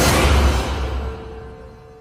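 Logo-intro sound effect: a deep, booming whoosh with a single held tone, loudest at the start and fading away over about two seconds.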